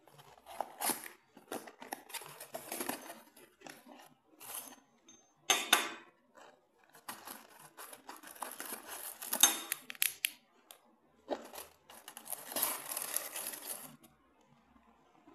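A small cardboard box being opened by hand and its crumpled kraft-paper packing rustling and crinkling as it is pulled out, in irregular bursts with a few sharp clicks.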